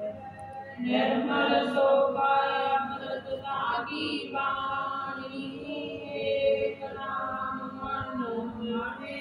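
A group of women singing a Sikh shabad (Gurbani hymn) together in long, held sung lines; the singing gets louder about a second in.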